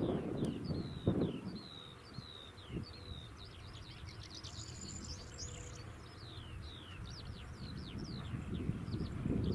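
Songbirds singing, a steady stream of short, quick downward-sliding chirps, over a low rumble of wind on the microphone.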